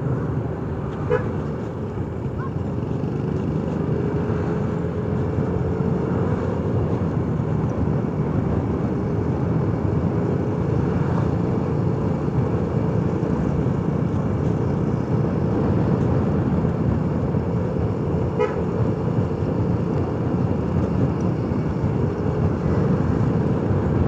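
Riding a motorcycle: steady wind rush on the microphone over the motorcycle's running engine, growing slightly louder as it goes.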